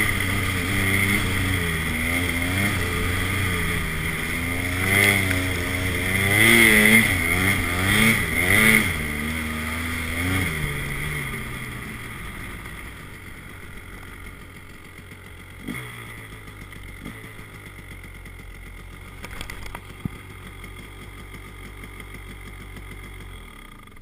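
Snowmobile engine under throttle, its pitch rising and falling as the sled ploughs through deep snow, then easing off about ten seconds in and settling to a quieter, low idle as the sled slows and stops.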